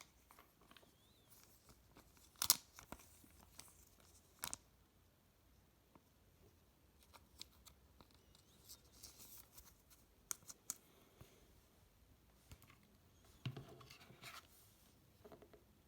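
Faint handling of football trading cards: cards sliding against each other with light crinkling, and two sharp clicks in the first few seconds.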